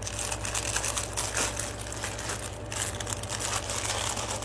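Close handling noise: rustling and crinkling with many small irregular clicks, over a steady low hum.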